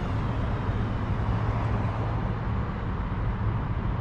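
Steady low rumble of road traffic, with a constant low hum underneath.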